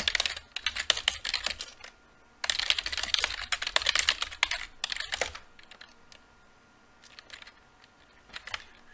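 Computer keyboard typing: two fast runs of keystrokes, each a couple of seconds long with a short pause between, then slower scattered key presses.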